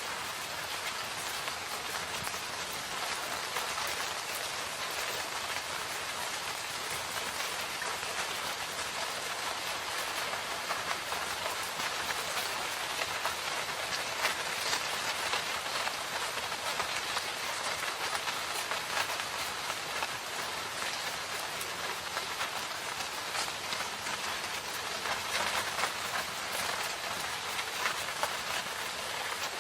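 Steady rain falling, with many individual drops pattering close by over a continuous hiss of rainfall.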